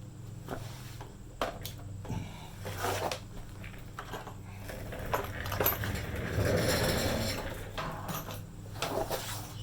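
Scattered knocks and metallic clinks of tools and parts being handled, over a steady low hum. A rushing noise swells and fades in the second half.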